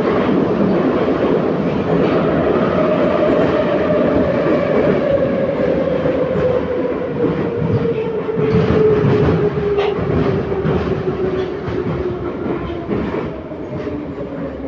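Running noise inside an 81-714.5 metro car, with the wheels clattering over rail joints. A whine from the traction motors and gearing falls steadily in pitch as the train slows, and the sound grows quieter towards the end.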